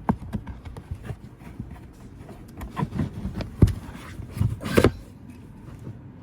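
Handling noise of car parts being refitted by hand: a series of knocks and clicks with some rubbing, the loudest two about three and a half and nearly five seconds in, as the auxiliary battery's cover is pushed back into place.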